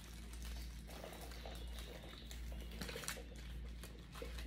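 Quiet eating sounds: soft chewing and small clicks of handling food, scattered irregularly over a steady low hum.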